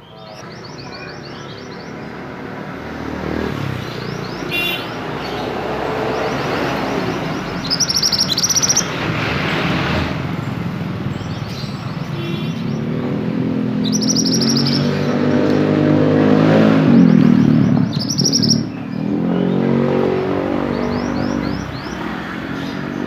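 Caged mantenan songbird giving short bursts of quick, high chirps several times. Under the chirps a motor vehicle's engine grows louder, is loudest about three-quarters of the way through, then fades as it passes.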